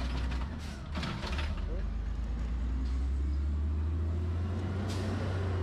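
Garbage truck engine running with a steady low rumble, with a few short knocks about a second in and again near the end.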